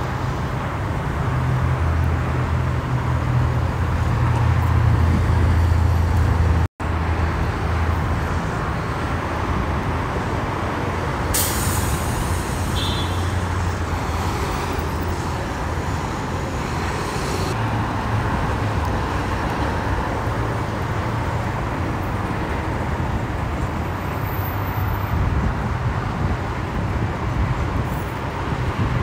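Heavy freeway traffic: a steady wash of tyre and engine noise, with the low drone of a big truck's engine strongest for the first several seconds. The sound cuts out for an instant about seven seconds in. About halfway through, a high hiss lasts for several seconds.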